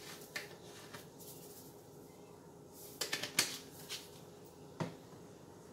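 Garlic salt being shaken from a spice shaker over the ribs: a few short rattling bursts, the loudest about three seconds in, and a single click near the end.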